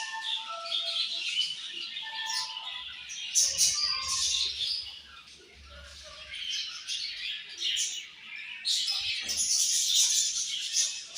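A flock of budgerigars chirping and chattering busily, with a brief quieter lull about halfway through.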